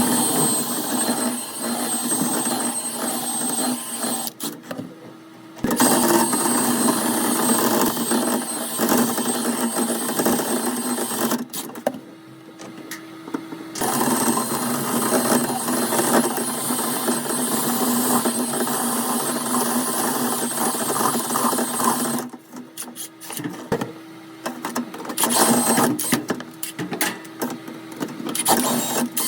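Power tool used for dryer vent cleaning, its motor running with a rattling scrape in long stretches. It drops away briefly about five seconds in, again around twelve to fourteen seconds, and for a few seconds after twenty-two seconds.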